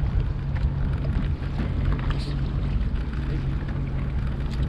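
Sea-Doo personal watercraft engine idling with a steady low hum, under wind noise and light water splashing against the hull.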